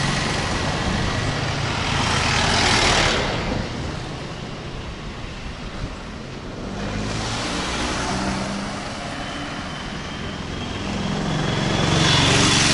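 Road traffic on a town street: vehicles driving past one after another, their engine and tyre noise swelling about two seconds in, again midway, and loudest near the end.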